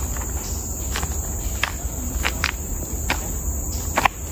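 Steady high-pitched drone of forest insects, with footsteps on a path of dry leaves at a slow walking pace, one step every second or less.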